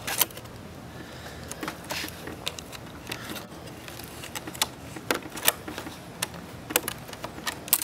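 Irregular light clicks and scrapes of a stainless steel hose clamp band being threaded through the slots of a plastic milk crate by hand.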